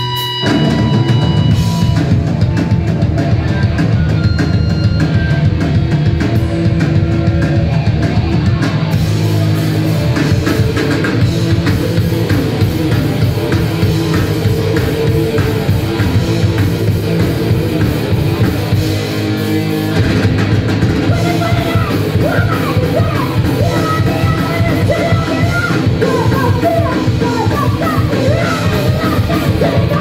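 A live rock band playing loud and heavy, with electric guitars, bass guitar and a drum kit, the full band coming in right at the start. Vocals come in about twenty seconds in.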